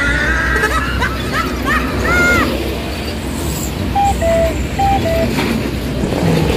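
Heavy vehicle engine and traffic rumble. About four seconds in, a bus telolet horn plays a short two-note tune twice, high note then low.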